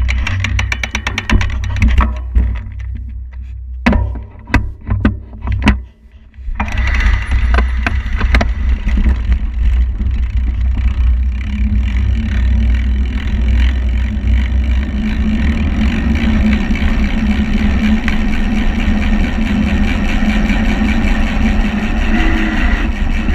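Wind buffeting the microphone of a bike-mounted camera on a fast road descent, over tyre rumble on asphalt. The rumble is uneven, with sharp crackles, for about the first six seconds, then becomes a steady, dense rush.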